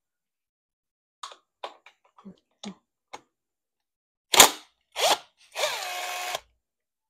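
Cordless impact wrench with a socket on a motorcycle bolt: two short trigger bursts about half a second apart, then a run of just under a second with a steady whine. Before that, a few light metallic clicks of sockets being handled.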